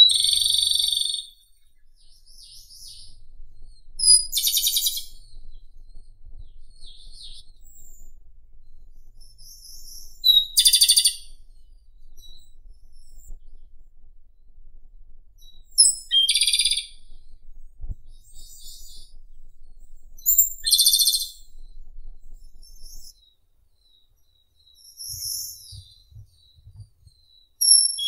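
Japanese robin singing: short phrases about every five seconds, each a thin high note followed by a rapid trill lasting about a second, with fainter chirps between.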